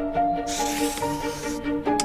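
Light background music with a held melody, joined about half a second in by a spray-like hiss sound effect that lasts over a second.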